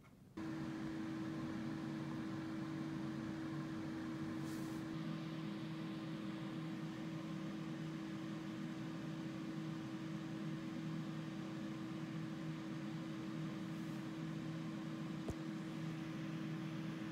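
Steady machine hum with one constant low tone, starting suddenly about half a second in, and a single faint click near the end.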